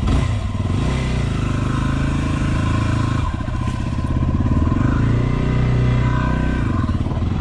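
2016 Yamaha WR250R's single-cylinder four-stroke engine running as the bike sets off, its pitch shifting with the throttle and briefly dipping about three seconds in.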